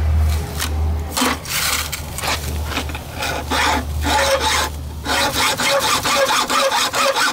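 A hacksaw cutting through the sheet-metal casing of a scooter muffler, rasping back and forth in repeated strokes. The strokes are slow and uneven at first and settle into a quicker, steady rhythm about five seconds in.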